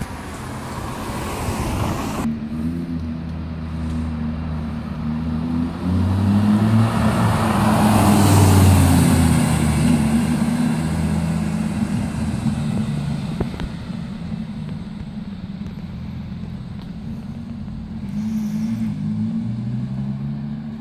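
Lamborghini Gallardo's V10 engine running as the car drives off up the street. The engine note swells to its loudest around the middle, fades as the car pulls away, and rises again briefly near the end.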